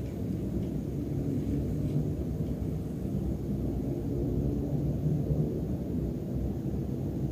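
Battery-powered toy train running along a plastic track layout, a steady low rumble of its wheels and motor with a faint wavering hum. The battery is nearly flat, so the train is only just managing to pull its wagons.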